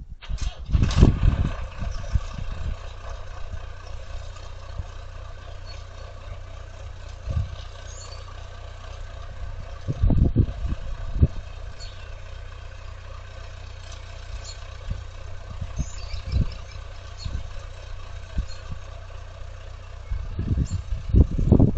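Engine of a skid steer or forklift running steadily, with occasional low thumps and clunks.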